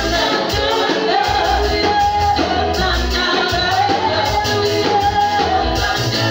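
Worship song: a woman singing over a band with bass and a steady beat.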